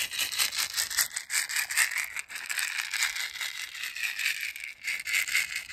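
A hand-held woven basket rattle shaken quickly and steadily: a dense, rapid rattling of the loose beads or seeds inside, bright and hissy, without pause.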